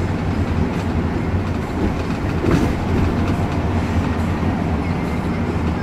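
Shuttle bus driving at speed, engine and road noise droning steadily inside the cabin, with a brief thump about two and a half seconds in.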